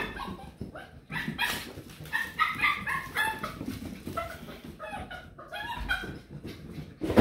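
Beagle puppies yipping and barking in play: a quick run of short, high yaps, thickest about two to three seconds in.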